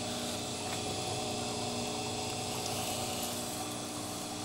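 Filament extrusion line running: its motors, rollers and fans give a steady mechanical hum with several level tones over a hiss.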